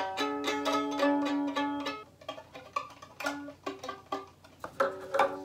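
Violin strings plucked pizzicato with the violin held like a guitar: a quick run of notes for about two seconds, then a few scattered plucked notes.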